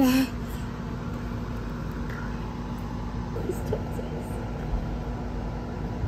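Room tone: a steady low hum, with a few faint short vocal sounds about three and a half seconds in.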